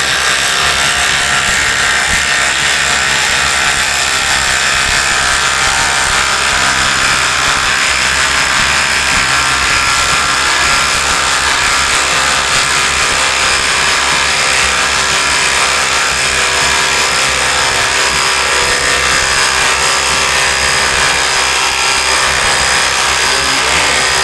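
Ryobi brushless impact drivers hammering steadily under heavy load, driving 10-inch by 3/4-inch lag screws into wood with no pilot hole. A continuous rapid impact rattle that never lets up.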